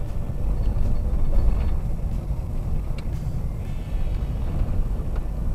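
Subaru Forester driving on a gravel dirt road, heard inside the cabin: a steady low rumble of tyres and engine, with a few light ticks.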